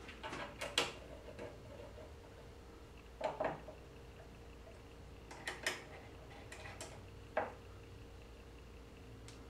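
Light metallic clicks and clinks from a hand tool driving small machine screws into the Z-axis motor plate, in short clusters a few seconds apart, over a faint steady hum.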